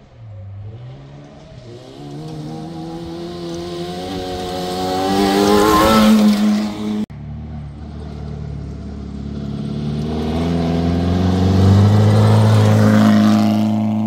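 Historic rally car engine rising in pitch and growing louder as the car approaches at speed on a gravel stage, loudest about six seconds in. The sound cuts off abruptly about seven seconds in, and a second rally car's engine builds up the same way, loudest near the end.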